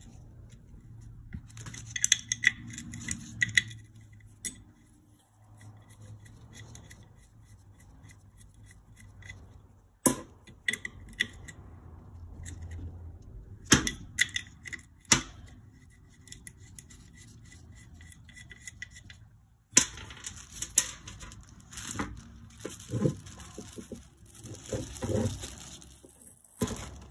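Hand tools working on a Yamaha YZ250F engine: a ratchet clicking as 10 mm bolts are backed out, with scattered sharp metal clinks and knocks of tools and parts on the bench.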